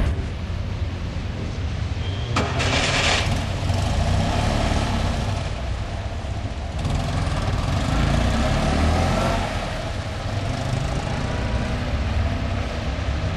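Fiat 500 car engine running with a low, uneven pulsing, with a brief hiss about two and a half seconds in and a somewhat louder stretch in the middle.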